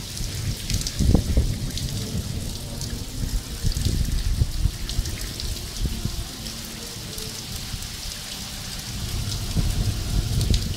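A hailstorm with heavy rain: many scattered sharp ticks of hailstones and drops striking over a steady hiss, with an irregular low rumble that swells near the start and again near the end.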